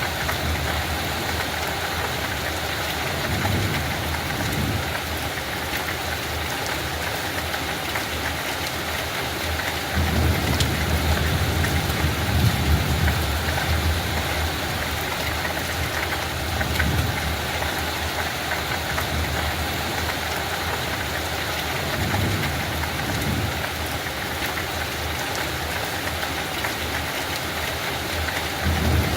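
Light rain falling steadily, an even hiss, with a deep rumble swelling and fading several times underneath.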